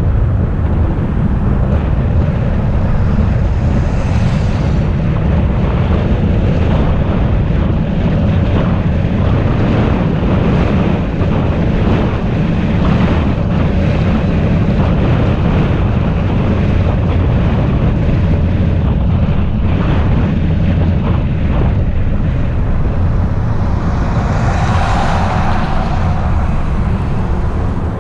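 Steady road rumble and wind noise from a moving car. The sound swells briefly near the end.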